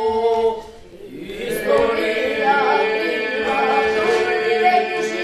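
Children's group singing a song: one young voice leads over a steady held note, with a brief break in the singing about a second in.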